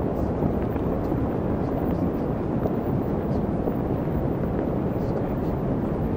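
Steady, even rushing noise, heaviest in the low end and unchanging in level, like wind or brown noise: the masking track of a subliminal audio.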